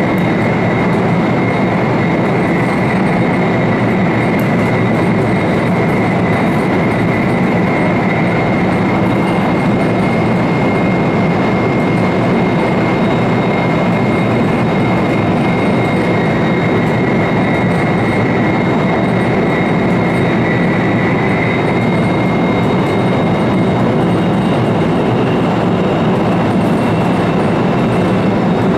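Steady running noise of an E4 series double-decker Shinkansen at speed, heard from inside the vestibule deck: an even rumble of wheels and rushing air with a thin high whine held over it, and a second, higher whine joining near the end.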